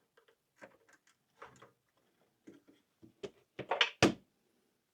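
Small clicks and knocks of parts being handled while a PlayStation 5's SSD is taken out, with a louder clatter of several knocks about three and a half to four seconds in.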